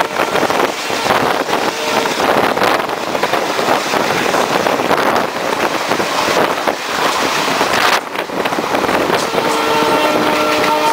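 Loud rush of wind and wheel clatter from a moving Indian express train as an oncoming passenger train crosses on the adjacent track, its coaches rushing past close alongside. A steady chord-like tone comes in near the end.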